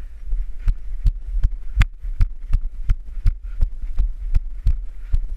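Rhythmic thumps, about three a second, like hurried footsteps with the camera jolting at each step, over a steady low rumble of wind or handling noise on the microphone.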